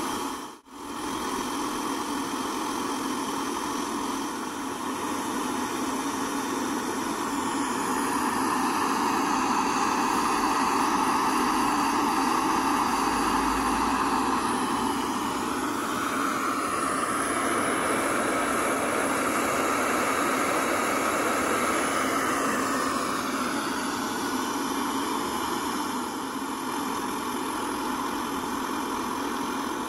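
Small canister gas camping stove burning steadily under an aluminium pot of water, a continuous hiss from the burner. There is a brief break in the sound about half a second in.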